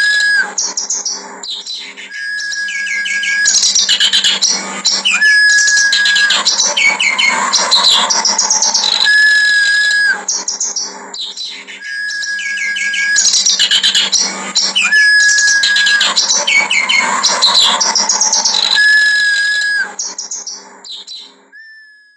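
Clamorous reed warbler (kerak basi) singing its harsh song: loud rasping, chattering phrases broken by clear, level whistled notes. The same sequence repeats about every eleven seconds, then fades out near the end.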